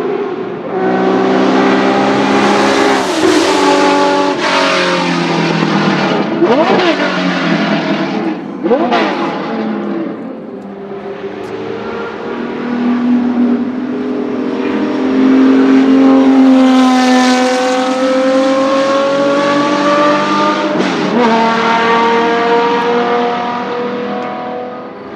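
Porsche 917 race car's air-cooled flat-12 engine at speed on track, over several passes. The pitch steps through gear changes, swings sharply up and down twice near the middle, and climbs under hard acceleration later on.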